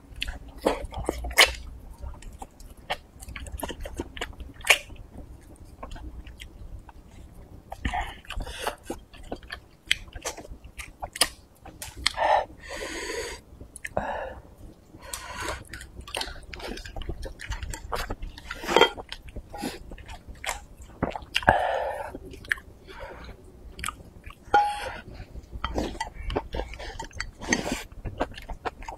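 A person chewing mouthfuls of spicy maocai and rice up close, with many wet mouth clicks and smacks.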